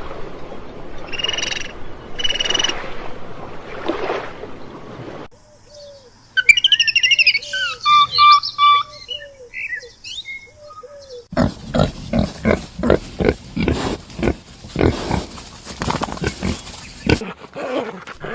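A run of separate animal-call recordings. First comes a noisy stretch with two short high calls. Then birds chirp over a repeated low call, and a rapid series of short grunts follows from about halfway.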